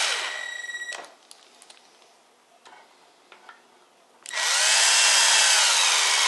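Cordless drill driving screws into a concealed cabinet hinge on a cabinet door. The first screw's motor whine winds down and stops about a second in. After a quiet gap with a few small clicks, a second screw is driven from about four seconds in, the whine running for a couple of seconds.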